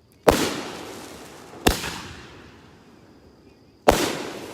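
Red Apple Sunflower Bomb fireworks cake firing, three loud shell bursts over about four seconds, each one's echo dying away after the bang.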